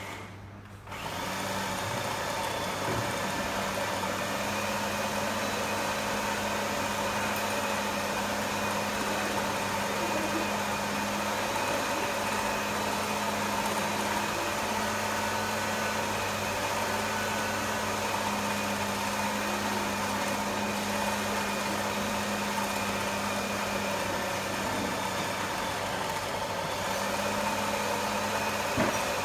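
A kitchen appliance's electric motor starts about a second in and runs steadily with a constant hum, blending the ingredients of the sweet mixture.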